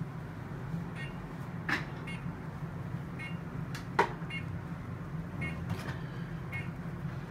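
Steady low hum of procedure-room equipment with faint short electronic beeps repeating about once a second. Two sharp clicks from handling the catheter and ultrasound probe, one near two seconds in and a louder one about four seconds in.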